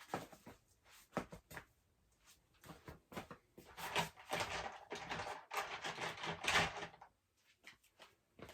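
Handling noises: a series of small clicks and knocks, with denser rustling and clicking in the middle few seconds.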